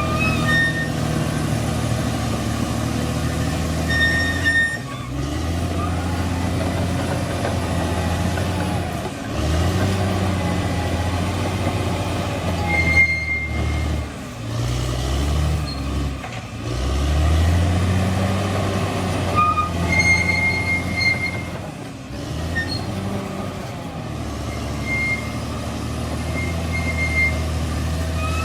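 Bulldozer's diesel engine running under load, its pitch rising and falling several times as it works. Short high-pitched squeaks come and go over it.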